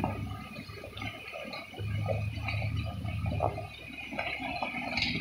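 Jeep Wrangler engine running low and slow while its tyres squelch and splash through muddy water on the trail, louder about two seconds in as it comes close.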